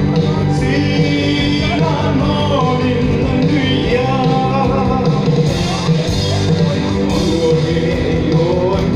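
A man singing live into a microphone over loud amplified backing music with a steady bass line.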